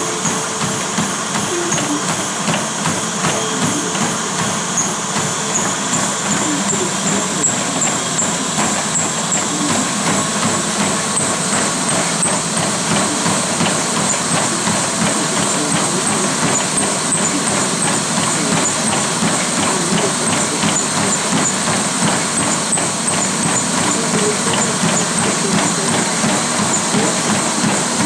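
Star Trac treadmill in use by a runner: a fast, even rhythm of footfalls on the moving belt over the steady whir of the machine, with a high thin whine that climbs slowly in pitch over the first dozen seconds and then holds.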